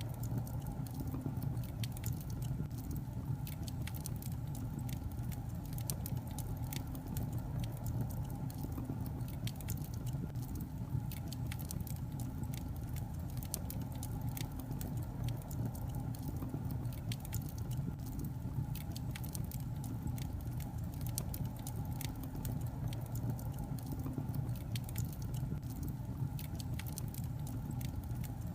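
Burning logs in a fireplace crackling, with frequent irregular sharp pops and snaps over a steady low rumble.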